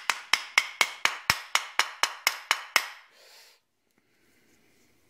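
Dead-blow hammer tapping a wrist pin through a Honda K20A2 piston and K20A3 connecting rod: a steady run of light, ringing taps, about four a second, that stops about three seconds in.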